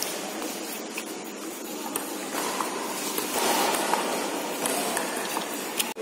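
Table tennis rally: the plastic ball clicking off paddles and the table now and then, a few sharp ticks at uneven intervals over the steady din of a large echoing hall.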